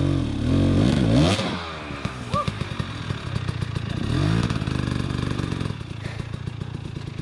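Dirt bike engine revved in blips, its pitch sweeping up and down several times in the first second and a half and again about four seconds in, dropping back to a low steady run in between. A sharp knock sounds about a second in.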